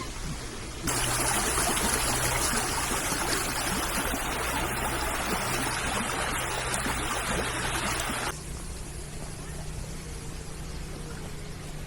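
Rushing stream water, a loud, even wash that starts abruptly about a second in and cuts off abruptly near the end, over a steady low hum.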